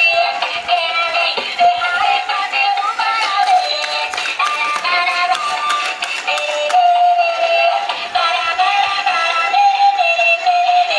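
A dancing, light-up Minion robot toy playing its built-in song through a small speaker: an electronic tune with a synthetic, chipmunk-like singing voice, thin and with no bass, and faint clicks scattered through it.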